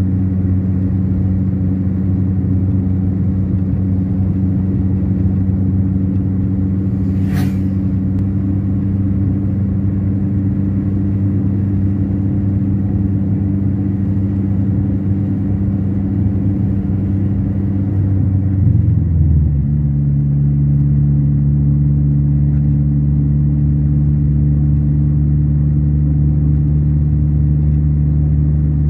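Car engine and road rumble heard from inside the cabin while driving on the highway, a steady low drone. About two-thirds of the way through, the engine note steps down in pitch.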